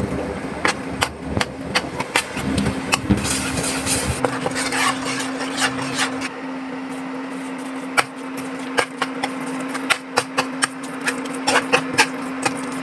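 Steel ladle scraping and knocking against a wok in irregular clicks while stirring curry paste and fish into coconut milk. A steady low hum runs beneath from about three seconds in.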